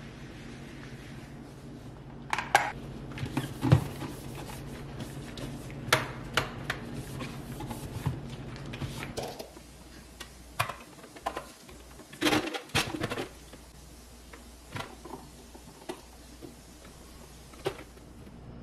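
Scattered sharp clicks and knocks of plastic kitchen-appliance parts being handled and set down on a countertop, a dozen or so through the stretch, over a low hum that stops about halfway.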